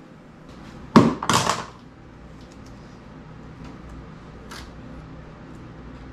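A wooden sliding barn door knocks against its jamb trim about a second in, followed by a brief scraping rub. There is a faint click a few seconds later.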